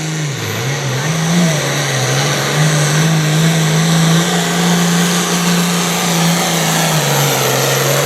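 Pro Farm pulling tractor's turbocharged diesel at full throttle, pulling the sled down the track. The engine note dips about half a second in, climbs back and holds high, then drops a step near the end.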